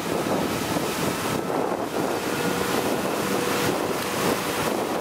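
Suzuki outboard motor running at speed towing an inflatable ring, heard as a faint steady hum under the rush of churning wake and spray, with wind buffeting the microphone.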